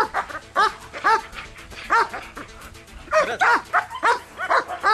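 A large working dog barking repeatedly at a protection-training helper, about ten barks in quick succession with a short pause a little before the middle.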